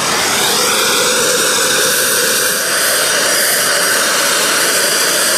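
Gas torch flame burning with a steady loud hiss, playing on a steel muzzle brake to heat it red hot.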